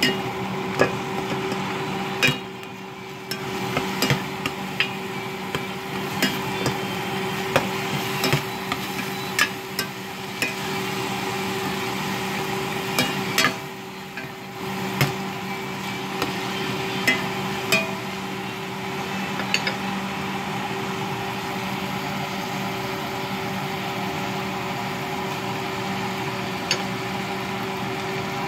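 A spoon knocking and scraping against the side of a pot while stirring ground pork, giving irregular sharp clicks that thin out after about twenty seconds. Underneath is a steady hum.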